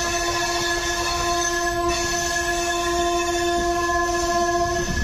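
Train horn sounding one long, steady note over the low rumble of the moving train. The note cuts off near the end.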